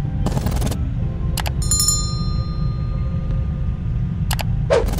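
Subscribe-button pop-up sound effects: a quick whoosh, a couple of clicks and a bell ding that rings out and fades, then more clicks and a whoosh near the end. All of it sits over a steady low rumble.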